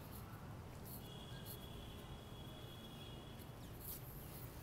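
Kittens eating: faint, scattered small clicks and scratches of chewing over a low steady rumble. A thin, steady high tone lasts for about two and a half seconds from about a second in.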